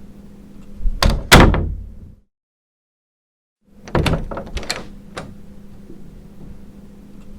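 A door shutting about a second in: a latch click, then a heavy thud. After a gap of dead silence, a run of sharp handle and latch clicks as a door is worked open again, over a faint steady hum.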